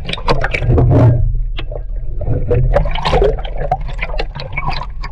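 Water sloshing and gurgling around a half-submerged camera, with irregular splashy clicks and a steady low rumble.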